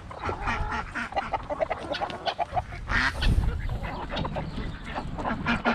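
Chickens clucking and calling in short, irregular bursts as they crowd around feed scattered on the ground.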